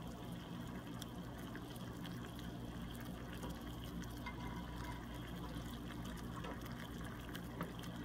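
Water at a rolling boil in a saucepan on a gas stove, a steady bubbling with a low hum underneath.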